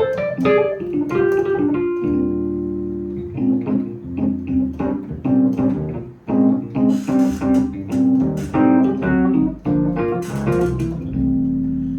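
Viscount Legend 70s Compact stage keyboard being played, with held low notes under repeated short chords in a steady rhythm.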